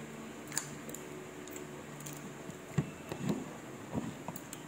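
A metal spoon clicks against a balot's eggshell, then wet chewing and mouth sounds as a mouthful of balot is eaten.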